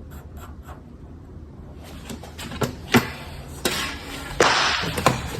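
A Sharpie marker drawn over the van's sheet-metal slider door, with a few sharp taps and a short rubbing stroke about four and a half seconds in.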